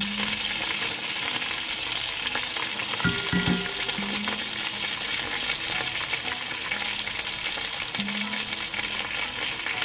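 Chicken and pork pieces frying in hot oil in a pot: a steady, dense sizzle with crackling spatters as the meat browns.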